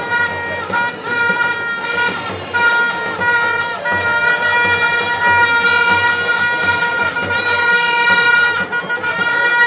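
Music with a loud horn-like note held at almost the same pitch throughout, over a rough noisy background.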